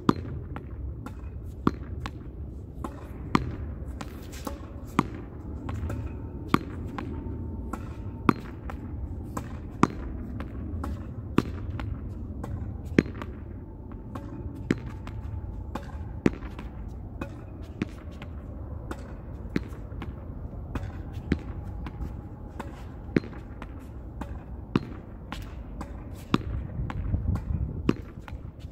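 A ball being hit against a wall over and over in a steady rally: a sharp smack about every one and a half to two seconds, with softer knocks between.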